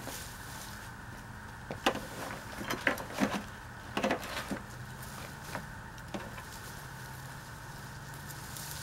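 Several short knocks and scrapes, bunched in the first half, from hands handling harvested ginger, a garden trowel and a plastic bucket among flower pots, over a steady low hum.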